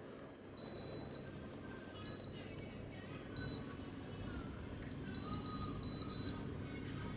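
High electronic beeps from a Daikin mini split indoor unit: a longer beep about half a second in, single short beeps near 2 and 3.5 seconds, then a quick run of beeps around 5 to 6 seconds, over a steady low hum.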